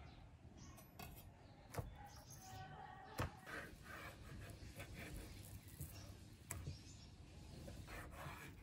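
Kitchen knife cutting raw beef on a wooden cutting board: faint slicing with a few sharp knocks of the blade and meat against the board, the loudest about three seconds in.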